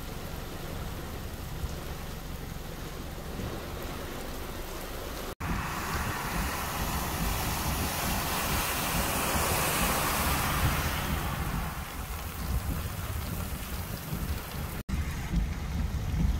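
Heavy rain falling steadily. After an abrupt cut, an SUV's tyres splash through deep floodwater, the rushing water swelling as it passes and then fading. After a second cut, a car drives through the flooded road, with uneven splashing.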